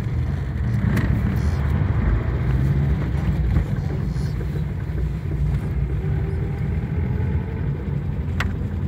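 Steady low engine and road rumble heard from inside a moving car's cabin. A sharp click sounds about a second in and another near the end.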